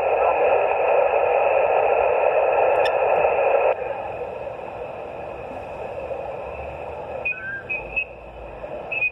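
Shortwave receiver on the 20-metre amateur band putting out loud, narrow-band hiss crossed by several steady tones. About three and a half seconds in, the hiss drops sharply to a lower level, and near the end a faint, garbled sideband voice comes through.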